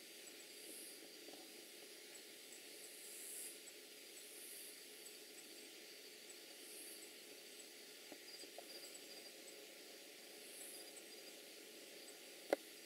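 Near silence of a forest at night: a faint steady hiss with faint high-pitched ticking. One sharp click comes near the end.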